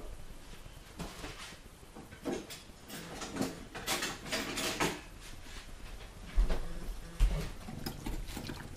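Scattered kitchen handling noises: brief knocks, clatter and rustling, with two dull thumps later on.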